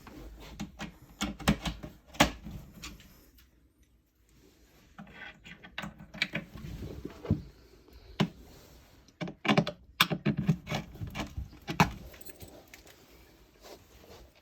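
Small metal cam-lock fittings for flat-pack furniture clinking and rattling as they are handled, a string of irregular sharp clicks and knocks with a short lull about four seconds in.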